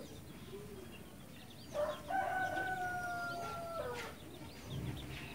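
A rooster crowing once in the background, a long held call starting about two seconds in, lasting about two seconds and dropping in pitch at the end. Faint short high chirps of a small bird sound around it.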